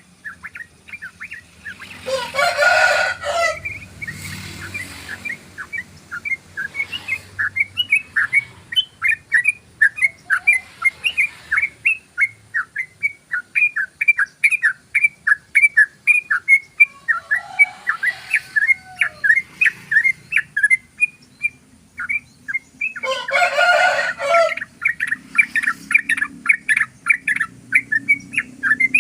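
Yellow-vented bulbul (trucukan) singing a long, fast run of short chirping notes, about three or four a second, in the continuous 'ropel' style. Two loud harsh rasping calls break in, one about two seconds in and one near the end.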